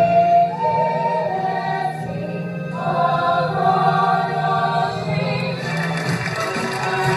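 Theatre ensemble cast singing together in chorus, holding long notes. Audience cheering starts to come in near the end.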